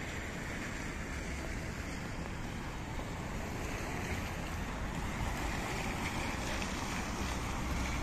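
Steady wash of rain and wind, with wind rumbling on the microphone; it grows slightly louder near the end.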